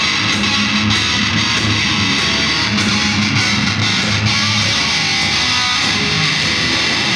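Heavy metal band playing loudly, with distorted electric guitars over a repeating low riff.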